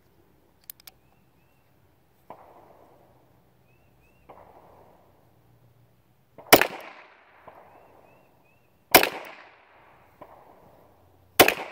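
High Standard H-D .22 LR semi-automatic pistol firing three single shots about two and a half seconds apart, each a sharp crack with a short ringing decay. Two much fainter shots come earlier, at about two and four seconds in.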